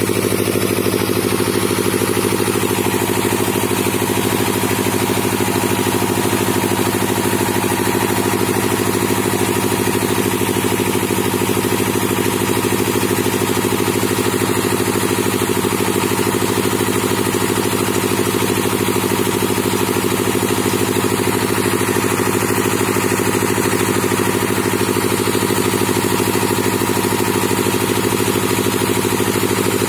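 Engine of a hydraulic auger soil-drilling rig running at a steady speed, its pitch unchanged throughout.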